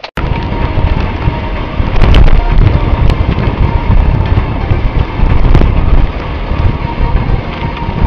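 Loud wind buffeting the microphone over the rumble of a vehicle on the road, with a faint steady whine and a few sharp knocks about two, three and five and a half seconds in.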